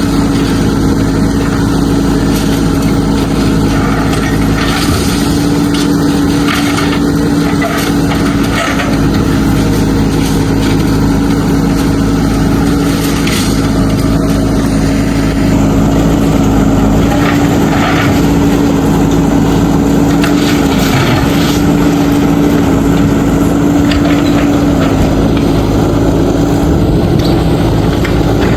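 Diesel engine of a JCB 3DX backhoe loader running steadily at a held pitch, with occasional short knocks and scrapes of rubble being worked.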